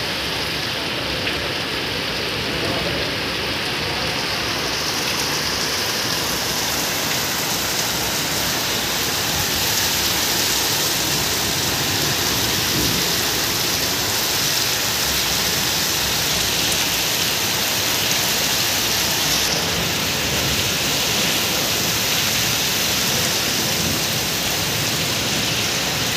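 Heavy rain pouring steadily, splashing onto a concrete courtyard floor.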